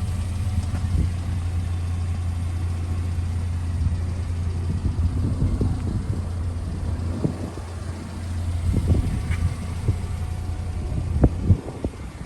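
1995 Subaru Sambar kei truck's supercharged EN07 four-cylinder engine running with a steady low hum. A few short knocks come near the end.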